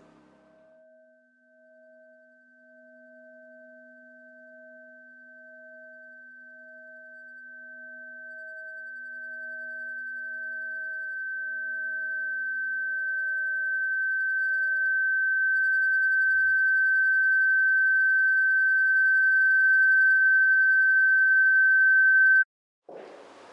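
A steady, high-pitched pure electronic tone that swells slowly from faint to loud and cuts off suddenly near the end, over softer lower tones that pulse about once a second and fade away partway through.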